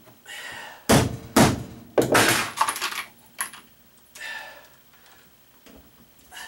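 A hammer striking a scratch awl to punch a starter hole through galvanized sheet-metal flashing: two sharp hits about a second in, then a longer, rougher hit, followed by a fainter, shorter knock a couple of seconds later.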